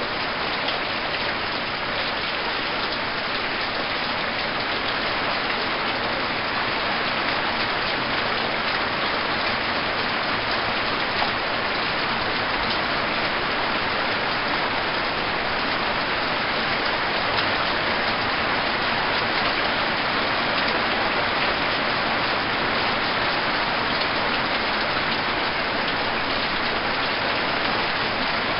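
Heavy rain falling steadily in a storm: a dense, even hiss that does not let up.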